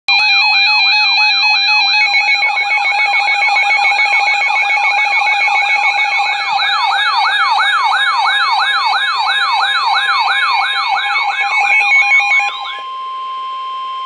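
Weather alert radios sounding their warning alarms together: a rapid rising siren whoop about three times a second over stepped electronic beeping. Near the end the siren and beeping cut off, leaving a steady tone near 1 kHz, the NOAA Weather Radio warning alert tone that comes before the severe thunderstorm warning broadcast.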